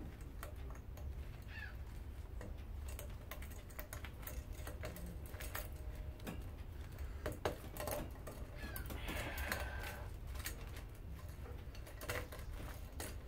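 Irregular light clicks and ticks of copper magnet wire being pulled and unwound from an electric lawnmower motor's windings, with an occasional brief squeak.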